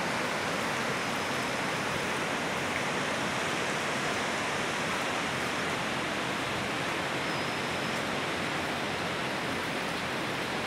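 Fast mountain river rushing over rocky rapids: a steady, unbroken rush of water.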